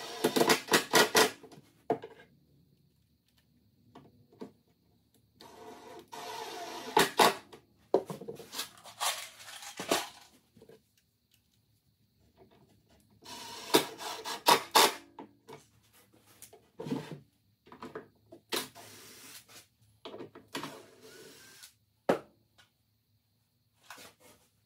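Workshop handling noise at double speed: clusters of knocks, clicks and rattles as a cordless drill/driver is handled inside a wooden drawer box, four bursts with quiet gaps between.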